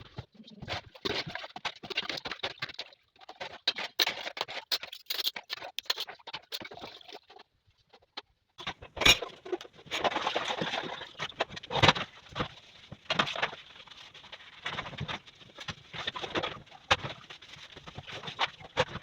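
Kitchen cleaning sounds: irregular scrubbing and scraping with many small knocks and clicks of things being handled, the loudest knocks about nine and twelve seconds in.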